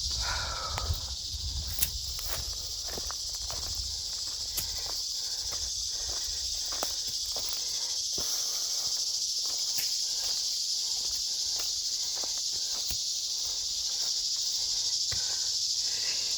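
Footsteps crunching along a dry desert trail, over a steady high-pitched insect chorus.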